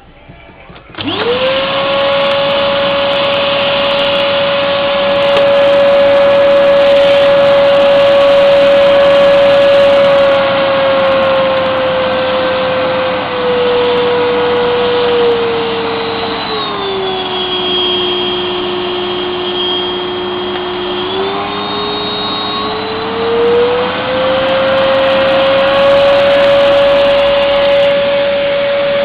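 Top House vacuum cleaner switching on about a second in and running with a steady motor whine. Partway through the whine slowly drops in pitch, holds lower for a few seconds, then rises back to its earlier pitch.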